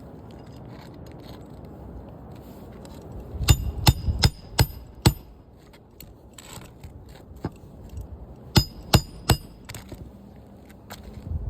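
Hammer striking nails during roof shingle repair, sharp ringing blows: a quick run of about five a few seconds in, a lone knock, then three more near the end.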